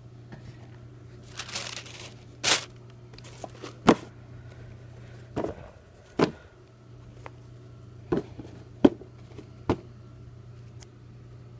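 Handling noise from sneakers and their cardboard shoebox: a brief crinkle of tissue paper, then about seven separate sharp knocks and taps as the shoes are handled and set on the box, over a steady low hum.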